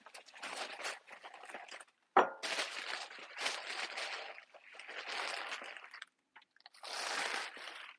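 Packing material rustling and crinkling in irregular bursts as items are lifted out of a moving box, with one sharp knock about two seconds in.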